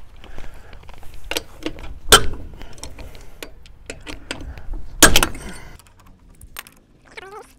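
Lug nuts being loosened with a lug wrench on a steel wheel: scattered metallic clicks and knocks of the wrench on the nuts, with two louder clanks about two and five seconds in.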